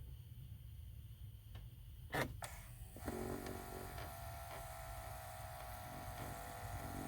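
Two quick clicks about two seconds in, then the freshly installed passenger-side blend door actuator's small electric motor on a 2013 Chevy Impala whirring steadily for about four seconds as it drives the door.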